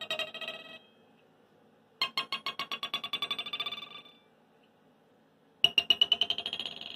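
Thin brass rod set vibrating while a green scrubbing pad damps it, heard through a piezo contact mic as a crunchy, buzzy tone like an 80s digital synth, stuttering in fast pulses. It comes in three bursts: one dying away just under a second in, one from about two to four seconds in, and one starting about five and a half seconds in.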